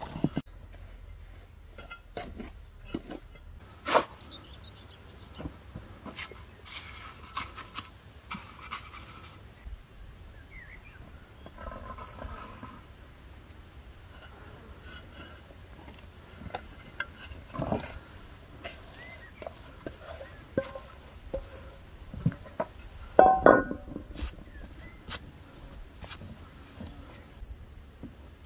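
Insects chirring in a steady, high, continuous drone. Scattered taps and knocks come from hands working dough on a wooden board, with the loudest cluster about three quarters of the way through.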